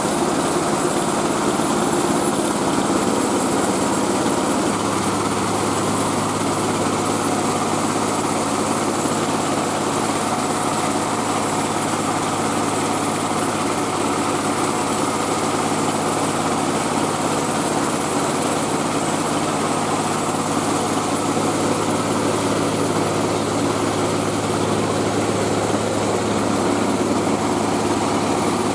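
Mobile rice-milling machine running steadily, its engine and mill making a constant mechanical drone; a deeper steady hum joins about five seconds in.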